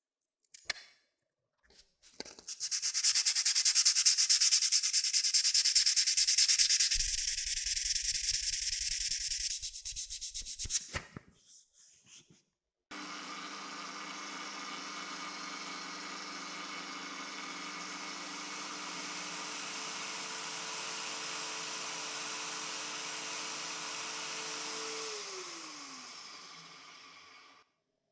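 Hand sanding with a rough, rasping noise for about eight seconds. After a pause, a small electric motor runs steadily and then winds down near the end, its pitch falling as it stops.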